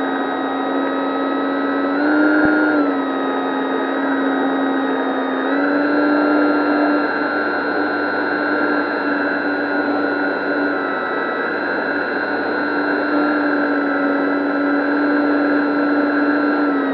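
Dynam 3720-650kV brushless motor and propeller whining steadily in flight, heard through the plane's on-board camera over a rush of air noise. The pitch jumps up briefly about two seconds in, then rises again at about five and a half seconds and holds there.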